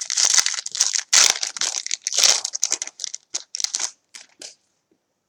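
Wrapper of a 2015 Topps Valor football card pack crinkling as it is torn open by hand. Dense crackling for about three seconds, thinning to a few scattered crinkles that stop about four and a half seconds in.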